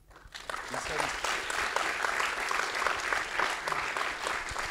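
Audience clapping, beginning suddenly just after the start and going on as a steady, dense patter.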